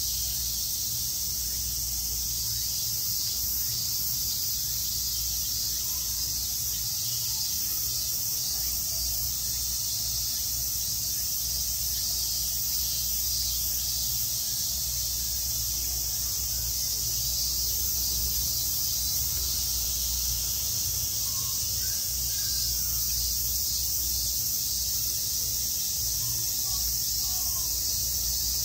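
Steady high-pitched chorus of summer insects, unbroken throughout.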